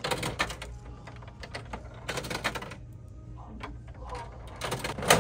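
Tokens clicking and rattling into the coin slot of a Bandai gashapon capsule machine, in short clusters of sharp clicks about two seconds apart, with a louder clatter near the end.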